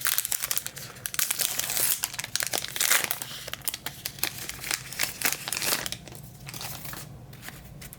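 Trading card pack wrapper being torn open and crinkled by hand, a dense crackling for about six seconds that then thins out to a few quieter rustles.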